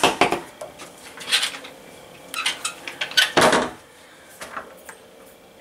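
A string of clicks, knocks and light clatter from wooden cabin cupboard doors and fittings being opened, shut and handled.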